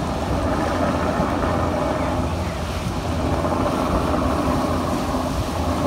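Motorboat engine running steadily while the boat is under way, mixed with the rush of water from the wake.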